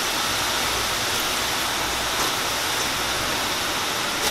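Strips of dough deep-frying in a pot of hot vegetable oil: a steady sizzling hiss with no breaks.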